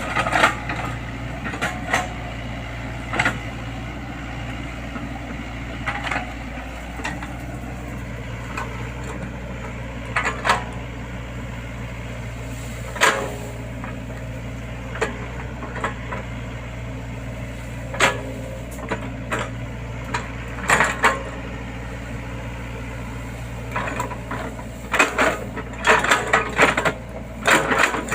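Excavator's diesel engine running steadily, with irregular sharp knocks and clanks from the machine at work, several in quick succession near the end.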